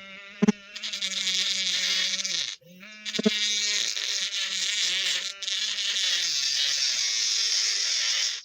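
Small DC motor of a homemade mini drill running with a steady buzzing whine. It stops for a moment about two and a half seconds in, starts again, then cuts off at the end.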